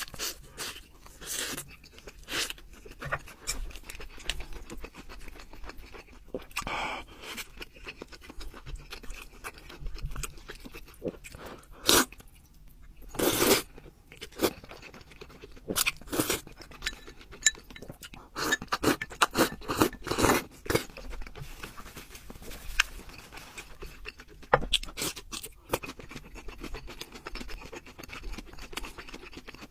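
Close-miked eating sounds: crunchy bites and wet chewing of fried food and noodles, many short sharp crunches with a few longer, louder bursts, the loudest about halfway through.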